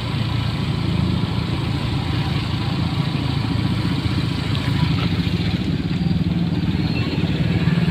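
Motorcycle engine running at low speed, a steady low putter.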